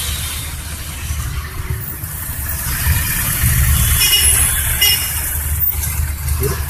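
Car engine running at idle, a low steady rumble that swells and eases slightly.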